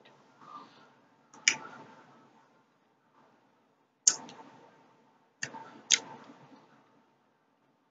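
Wet mouth clicks and smacks, four sharp ones each trailing off into softer mouth noise, as a sugar-coated peach gummy ring is sucked at the lips to take the sugar off it.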